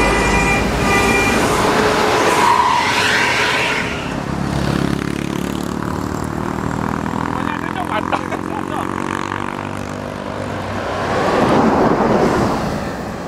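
A multi-tone telolet bus horn holds its chord for about the first second, then cuts off. Passing road traffic follows: a rush of a vehicle going by, a steady engine drone through the middle, and another vehicle rushing past near the end.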